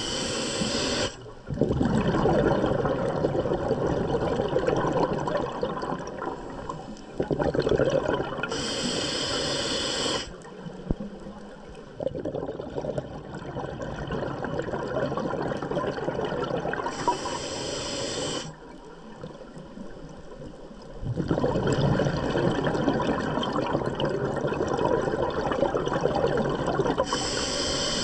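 Scuba diver breathing through a regulator underwater. A short hissing inhale comes four times, about eight and a half seconds apart, and each is followed by a long gurgling rush of exhaled bubbles.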